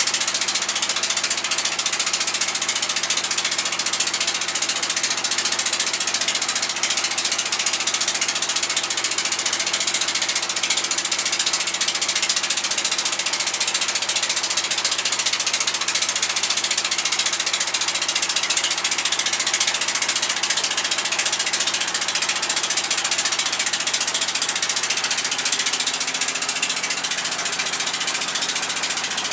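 Small passenger boat's engine running steadily under way, a loud, fast, even mechanical clatter that eases slightly near the end.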